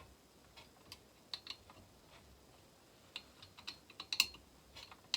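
Scattered light clicks and taps at irregular intervals, the loudest about four seconds in: small hand tools and metal and plastic parts being handled while fitting the intake boot on a Stihl MS 362 chainsaw.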